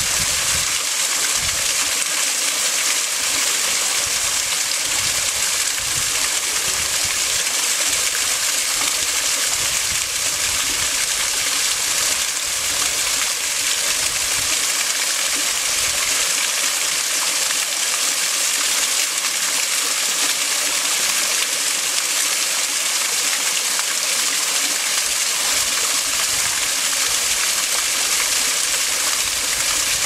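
Water pouring over a small stone dam's spillway and splashing into the pool below: a steady rushing flow.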